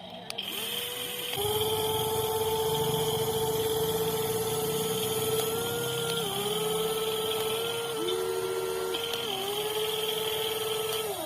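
Electric motors of a WLtoys 16800 metal RC excavator whining steadily as it works. The pitch dips and shifts several times as the arm and tracks take load.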